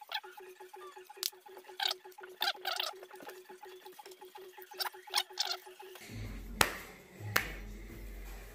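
In-shell sunflower seeds clicking and rustling on a tabletop as they are slid together and scooped up by hand, in short scattered bursts. About six seconds in, a low rumble comes in and two sharp clicks stand out.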